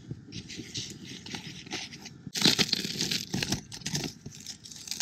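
A heated steel trowel cutting and scraping through rigid roof insulation board, with irregular crunching and tearing as the board is worked loose. The scraping grows louder and denser a little over two seconds in.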